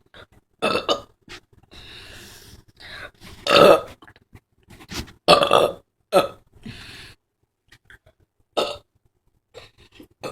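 A girl burping loudly again and again: about five or six separate burps of varying length, the biggest one about three and a half seconds in.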